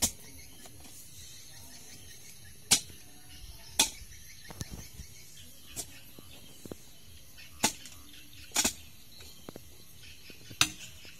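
A hoe striking and chopping into hard, stony soil while a small grave is dug: about seven sharp strikes, one every second or two.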